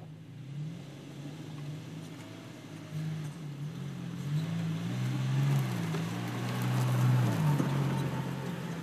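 2017 Toyota Tacoma TRD Pro's 3.5-litre V6 pulling the truck over rough off-road ground. Its pitch rises and falls with the throttle, and it grows louder as the truck comes closer, loudest about seven seconds in.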